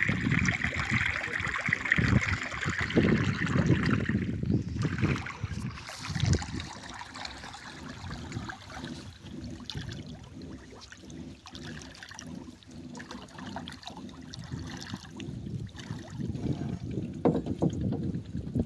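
Water splashing and lapping against the hull of a small wooden river boat, louder for the first few seconds, then quieter, and rising again near the end.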